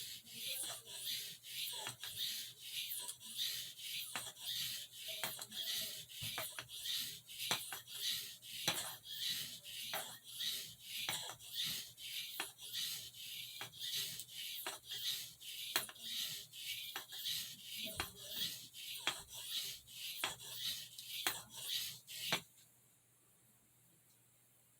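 Pen blade of a pocketknife being stroked back and forth on an oiled soft Arkansas sharpening stone: a steady scraping, about two strokes a second, that stops shortly before the end.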